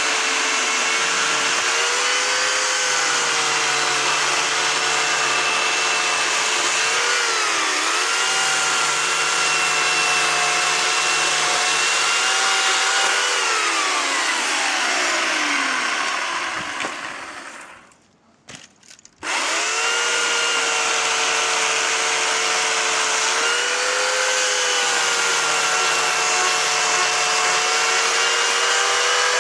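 Electric motor of a power saw cutting firewood. Its pitch sags briefly under load. About 14 s in it is switched off and winds down over a few seconds to a stop, then starts up again about 19 s in.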